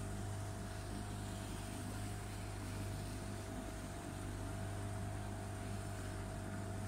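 A boat engine running steadily under way: a constant low drone with a thin steady tone above it, over a haze of water and wind noise.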